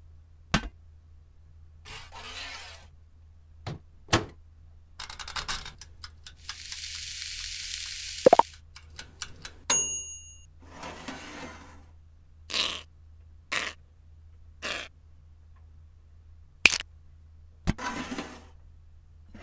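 A string of short sound effects: sharp clicks and clacks of plastic bricks and a metal baking tray, several brief scrapes, and a hiss lasting about two seconds. About ten seconds in, a toaster oven's timer bell dings once.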